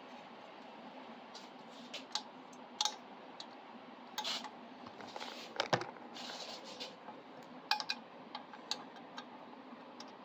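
Small metal tools and printer parts being handled: scattered light clicks and clinks, a few sharper ones, with a brief soft rustle about six seconds in.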